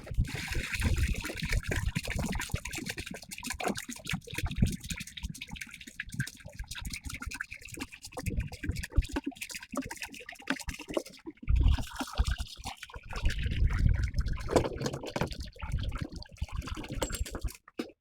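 Water being poured into a large container to fill it up for mixing with herbicide, splashing and trickling continuously.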